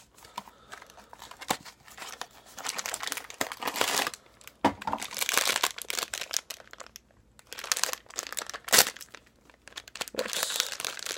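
Blind-box toy packaging being opened by hand: irregular crinkling and tearing with sharp clicks, a short pause after the middle, then a louder snap.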